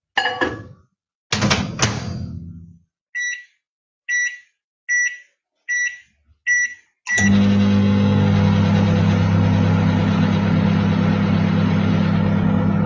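Microwave oven being set going to melt chocolate: a couple of knocks and rattles as it is loaded and shut, six short keypad beeps, then the oven starts running with a steady hum about seven seconds in.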